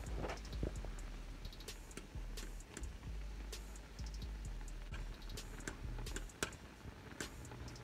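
Metal fork clicking irregularly against a pot while ramen noodles are stirred in water, over a faint low hum.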